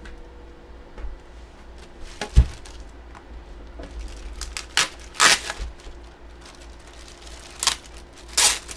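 Packaging being handled: a run of plastic and cardboard crinkles and knocks, with a sharp thump about two and a half seconds in and louder rustles around five seconds and near the end.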